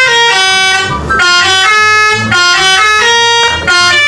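Loud music played on a telolet-style multi-tone bus horn: several horn notes sound together and step through a quick melody, over a low bass line.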